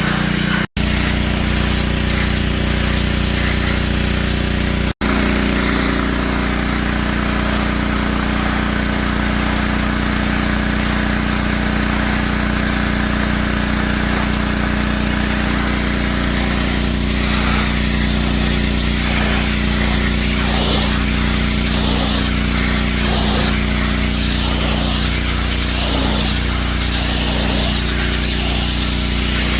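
Pressure washer running: a steady machine hum under the hiss of the water jet spraying, the spray growing louder a little past halfway. The sound drops out for an instant twice in the first few seconds.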